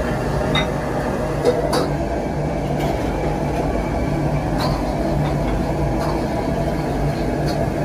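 Steady low hum and rushing noise of a running machine, with a few faint clinks of porcelain bowls being set down on a counter.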